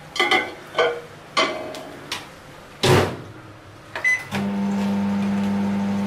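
Clinks and knocks as a glass dish goes onto an LG microwave oven's turntable and the door is shut, the loudest clunk about three seconds in. A short beep follows, then the microwave starts and runs with a steady low electrical hum.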